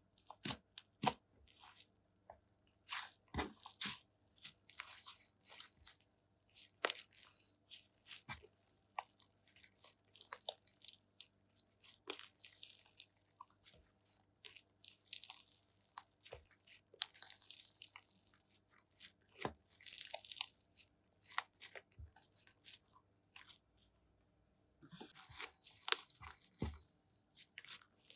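Slime being kneaded and mixed with cream by hand: irregular crackles, small pops and squelches, with a short pause near the end before a dense run of crackling.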